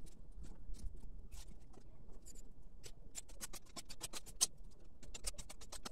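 Irregular dry crackles and clicks, sparse at first and coming thick and fast from about three seconds in.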